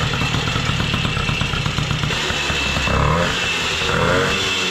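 Motoconfort 50V moped's single-cylinder two-stroke 50 cc engine running on a newly fitted expansion ('détente') exhaust, revved briefly twice about three and four seconds in.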